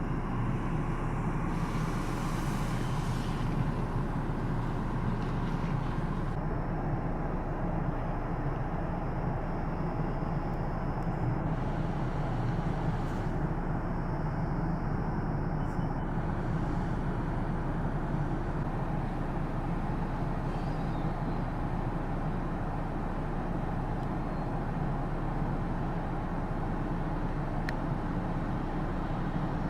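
Cars driving slowly through standing floodwater, a steady low rumble of engines and tyres in water with no sharp events.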